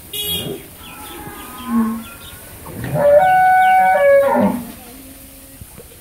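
Dairy cow mooing: one long call of about a second and a half near the middle, dropping in pitch as it ends. A short sharp noise comes at the very start.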